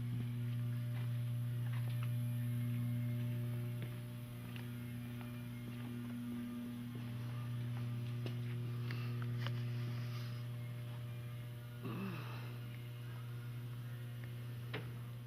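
Steady low electrical hum, with a few faint clicks and taps scattered through it and a brief rubbing sound about twelve seconds in.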